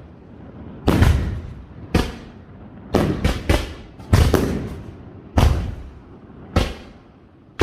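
Aerial firework shells bursting in a castillo display: a series of about eight sharp bangs, unevenly spaced roughly half a second to a second apart, each trailing off in a rumbling echo.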